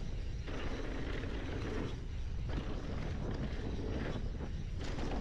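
Mountain bike riding down a dirt singletrack: knobby tyres rolling and crunching over the dirt, with wind buffeting the camera's microphone as a steady low rumble.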